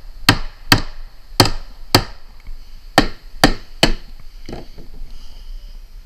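Claw hammer striking 3-inch lag screws through a galvanized steel chimney support bracket into wooden roof boards: seven sharp blows, stopping about four seconds in.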